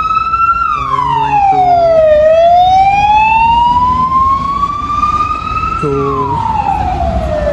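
Emergency vehicle siren wailing loudly: the tone climbs slowly, then drops quickly, twice.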